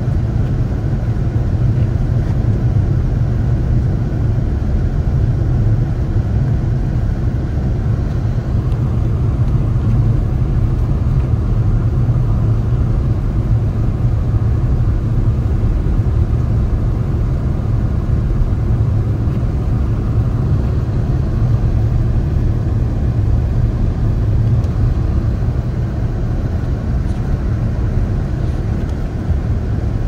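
Car driving on snowy roads: a steady low rumble of tyre, road and engine noise with no change in pace.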